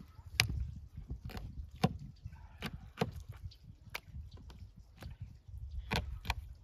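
Kitchen knife cutting through small fish and knocking on a wooden cutting board: a dozen or so sharp, uneven knocks, roughly two a second.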